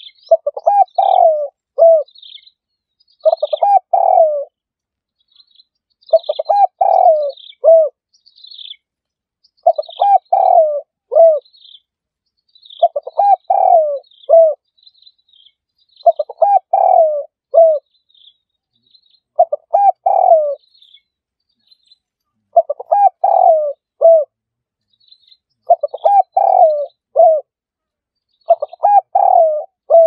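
Spotted dove cooing: a short phrase of several coos repeated about every three seconds, around ten times. Faint, short, high chirps from another bird are heard between and over the phrases.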